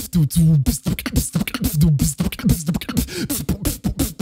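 A man beatboxing into a microphone: a fast, dense run of vocal percussion clicks and hits mixed with short hummed tones that slide in pitch.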